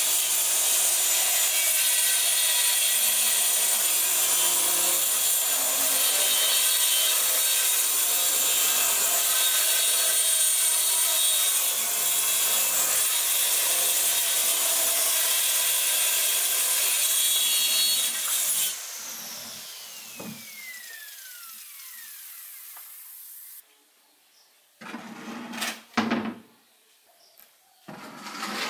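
Small handheld electric circular saw cutting lengthwise through a plastic drum with a steady high-pitched whine and hiss. About 19 seconds in it is switched off, and the whine glides down as the blade spins to a stop. A few short knocks follow near the end.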